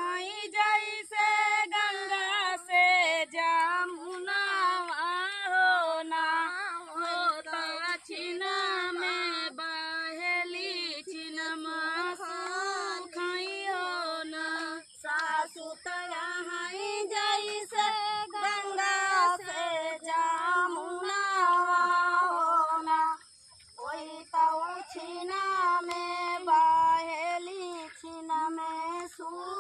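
A woman singing a dehati dhaan ropai kajari (paddy-transplanting folk song) unaccompanied, in long ornamented lines, with a brief pause for breath near the end.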